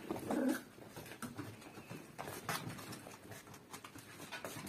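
Small poodles' claws clicking and pattering on a tiled floor as the dogs shuffle about, in scattered light ticks, with a brief vocal sound at the very start.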